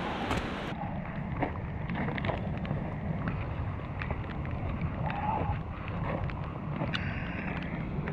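Wind buffeting the microphone, with footsteps clicking and crunching over loose, wet river stones.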